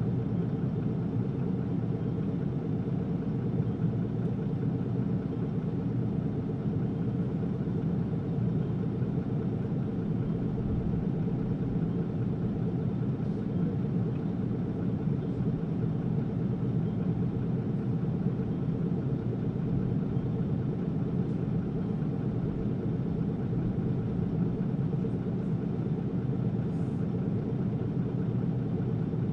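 Isuzu Erga city bus's diesel engine running steadily, heard from inside the passenger cabin: an even low rumble with no clear change in pitch or loudness.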